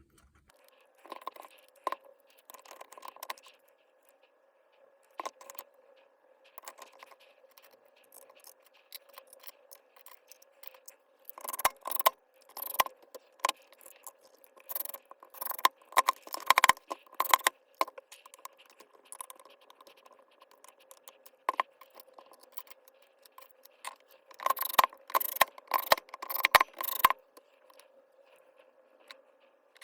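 Small hard objects being handled: irregular clicks, clinks and scrapes, busiest in two spells around twelve seconds in and around twenty-five seconds in, over a faint steady hum.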